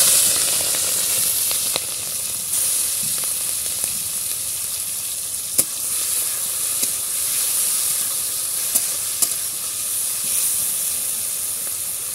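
Small prawns frying in hot oil in a steel kadai, just added: a loud, steady sizzle. A few sharp clicks come as a metal spatula stirs them against the pan.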